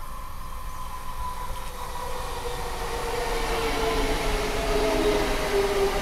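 DB Class 425 electric multiple unit running past, its motor whine slowly falling in pitch over growing wheel and rail noise. It gets louder as the train comes close.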